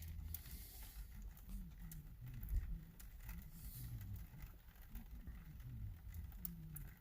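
Car radio playing faintly at very low volume, only its bass coming through, with a few faint clicks. The radio now producing sound is the sign that the replacement unit is working.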